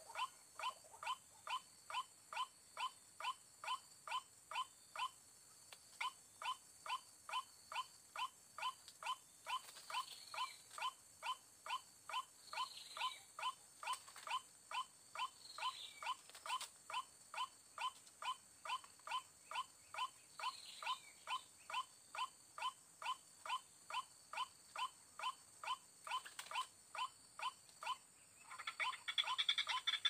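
White-breasted waterhen giving a steady run of short calls, about two and a half a second, with a brief pause about five seconds in. Near the end a louder, denser bout of calling begins.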